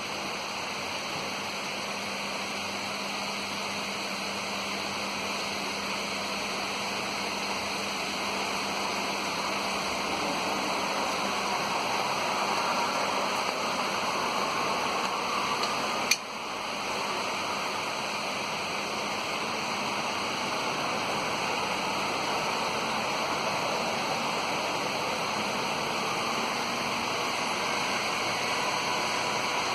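Heavy rain pouring down steadily in a thunderstorm downpour, with one sharp click about halfway through.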